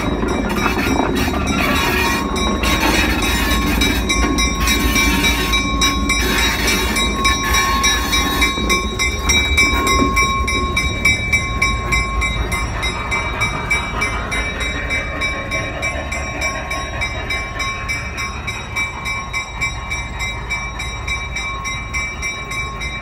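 California Western No. 65, a GP7 diesel-electric locomotive, running with a steady low engine rumble as it rolls slowly by at walking pace. A thin steady high tone joins about two seconds in. The sound grows gradually fainter in the second half as the locomotive pulls away into the engine shed.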